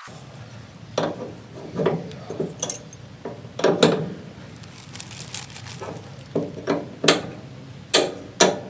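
A dozen or so irregular metallic clinks and knocks from tools and metal fittings being handled while a threaded fitting is undone by hand.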